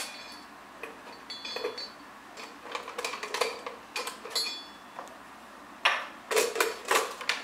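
Hard plastic and metal clicks and knocks from a soldering station and its solder-spool holder being handled and set down on a workbench mat. The knocks are scattered at first, then come as a dense clatter near the end.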